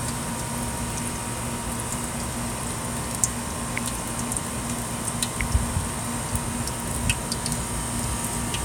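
Oil frying in a pan on a portable gas range, a steady sizzle with scattered small pops and crackles, over a faint steady hum.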